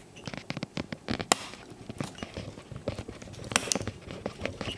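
Irregular clicks and light knocks of a Xiaomi electric scooter's brake lever and its housing being handled and fitted by hand, with two sharper clicks about a second and a half and three and a half seconds in.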